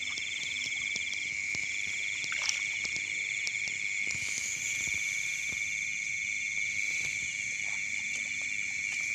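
Night chorus of frogs and insects: a steady high trilling, with a second, rapidly pulsing trill that drops out briefly twice. Faint scattered clicks sound under it.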